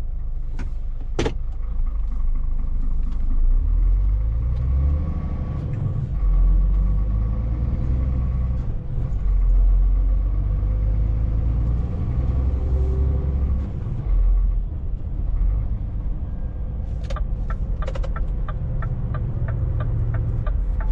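Scania S500's V8 diesel heard from inside the cab as the truck pulls away, its note rising with the revs and falling back at each gear change, several times over. A sharp click about a second in, and a regular ticking in the last few seconds.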